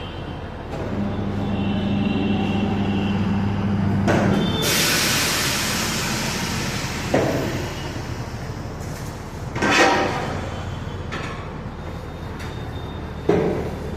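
Tyre being mounted on a motorcycle wheel rim: a motor hums steadily for a few seconds, then a long hiss of compressed air fades out. After that come a few sharp metallic knocks as the bead is seated over the rim.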